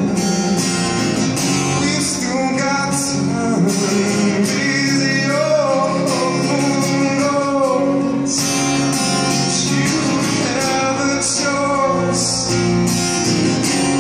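A man singing while playing an acoustic guitar, voice and guitar amplified through a small acoustic amp.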